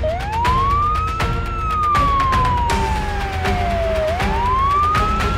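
Wailing siren: a single tone that climbs quickly, then sinks slowly, twice, over background music with a steady beat.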